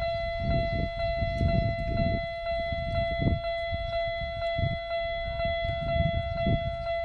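Electronic alarm of a Japanese railway level crossing ringing without a break, warning that a train is about to cross. Under it runs an uneven low rumble.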